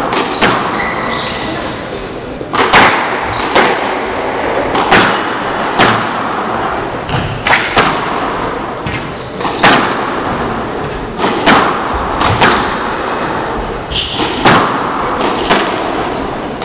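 Squash rally: the ball smacking off the rackets and the walls in a fast exchange of shots, a hard hit every half second to a second, echoing around the court. Shoes squeak briefly on the hardwood floor between some of the shots.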